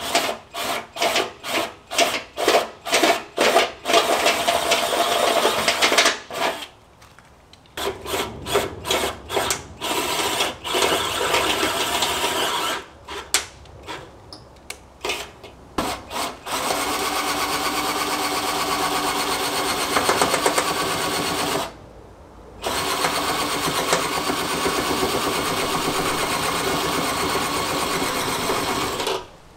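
Cordless drill boring holes in a car's front fender: first a run of short trigger pulses, then longer steady runs of several seconds each with brief pauses between.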